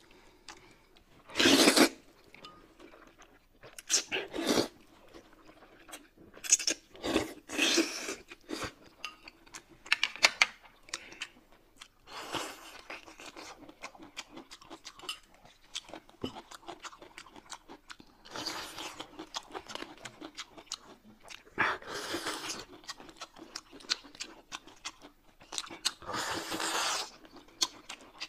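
Close-miked mukbang eating sounds: chewing and crunching of food, with about eight louder slurps of wide noodles and soup spread through.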